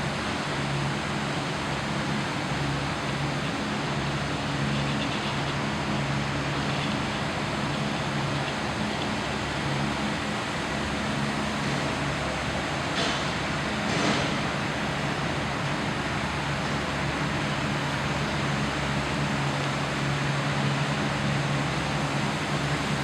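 Air source heat pump running steadily: a low, constant hum under an even rushing noise. Two brief hisses come about halfway through.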